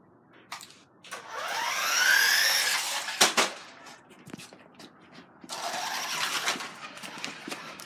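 Toy RC car's electric motor whining as it accelerates, its pitch rising over a couple of seconds, with a sharp knock just after. It runs again briefly near the end.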